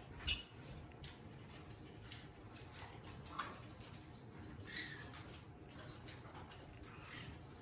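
Eastern rosella calling: one loud, short, shrill call just after the start, then a few faint chirps scattered through the rest, with soft little clicks between them.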